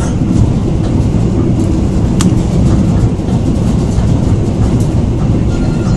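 Passenger train running at speed, heard from inside the carriage: a steady low rumble of wheels on rail, with a single sharp click about two seconds in.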